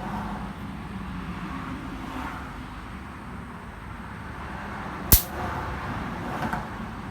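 Road traffic going by, a steady low rumble that swells a little now and then. About five seconds in there is one sharp click.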